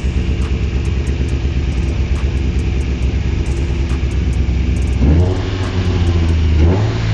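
Car engine idling with an open cone air filter fitted in place of the stock intake box. About five seconds in it is revved a little, the pitch rising and holding higher, and it steps up again near the end.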